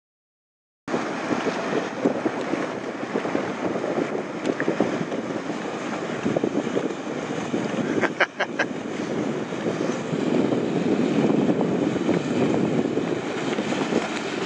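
Addictor 245 mini speedboat's outboard motor running across open water, heard from afar under wind noise on the microphone, getting louder from about ten seconds in as the boat comes closer. A brief sharp sound breaks in about eight seconds in.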